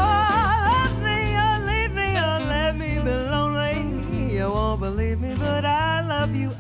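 Live traditional jazz band playing an instrumental chorus: a lead melody with wide vibrato over a steady walking bass.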